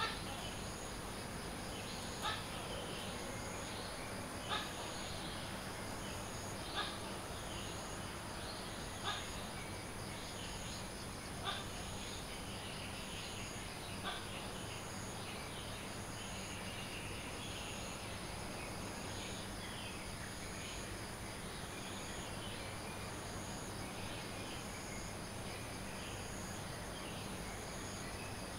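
Tokay gecko calling about seven times, roughly every two and a quarter seconds, the last calls weaker. Under it runs a steady insect drone with scattered bird chirping.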